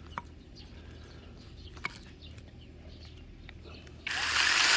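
A couple of faint clicks, then about four seconds in a battery-powered mini chainsaw starts up and runs loudly with an even noise and no clear motor pitch.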